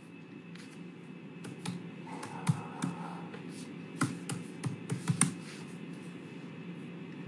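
Scattered light clicks and taps, about a dozen, from about one and a half to five seconds in, over a faint steady low hum.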